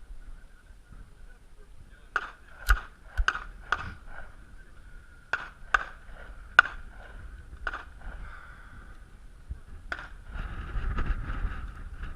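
Gunshots in a quick string: four shots about half a second apart, then several more spaced ones, as a practical-shooting stage is fired. A short stretch of rumbling noise follows near the end.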